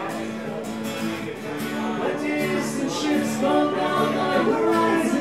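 Live music from two strummed acoustic guitars, with sung vocals over the chords.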